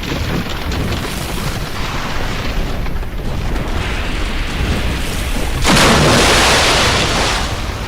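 Ocean surf: a steady low rumble of water, then a loud rushing wash of a breaking wave starting about two-thirds of the way in and lasting about two seconds.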